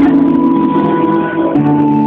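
Karaoke: a girl singing into a microphone over backing music, holding long notes that shift in pitch about one and a half seconds in.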